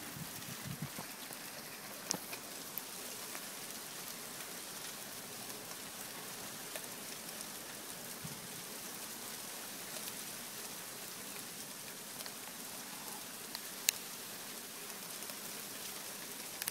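Small hail pellets falling steadily onto a wooden deck and lawn: an even hiss of many tiny impacts, with a few sharper clicks, the loudest nearly fourteen seconds in.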